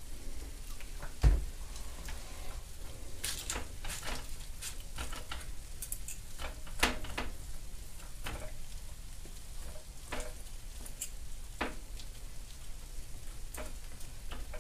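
Metal spoon spreading ketchup over the tops of hot meatloaves on baking sheets, with scattered small clicks and scrapes as the spoon touches the meat and the pans. A single thump about a second in.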